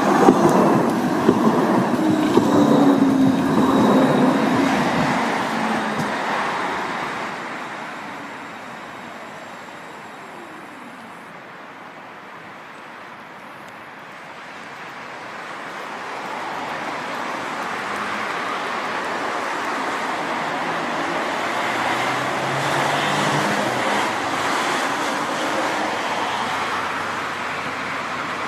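Siemens NF8 Combino tram going by close, its drive giving a falling tone as it passes and fades away. Street traffic noise then builds again.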